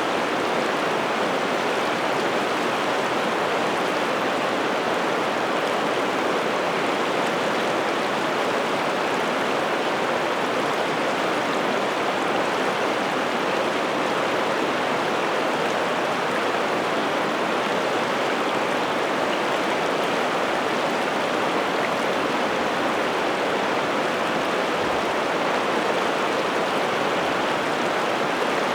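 River water flowing steadily, an even, unbroken rush of moving water.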